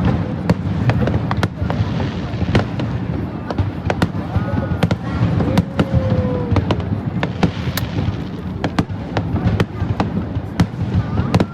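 Fireworks display: a fast, irregular run of sharp bangs and cracks over a dense, continuous low rumble, with a few brief gliding tones mixed in.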